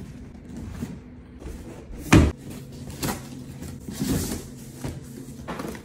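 A cardboard delivery box being handled and opened: a heavy thump about two seconds in, then scraping and rustling of cardboard and packing tape as the flaps are pulled open.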